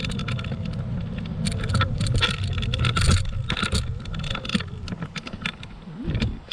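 AOVO electric scooter being ridden, heard through its handlebar-mounted camera: a low rumble from the ride with many rattling clicks and knocks throughout, busiest about halfway through.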